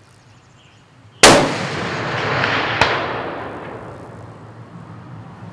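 A single shot from a custom large-bore muzzleloader rifle about a second in, very loud, its report rolling away over several seconds. About a second and a half after the shot comes one faint sharp ring: the bullet striking the steel deer target at 444 yards.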